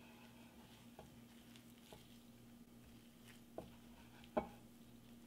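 Hands squeezing and kneading wet spinach and gram-flour dough in a glass bowl: faint squishing with a few soft knocks, the loudest about four and a half seconds in, over a steady low hum.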